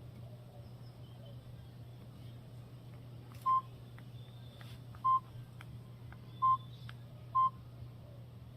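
Four short, high electronic beeps from a Samsung GT-E2121L mobile phone, unevenly spaced over about four seconds as its buttons are pressed, with faint clicks in between over a steady low hum.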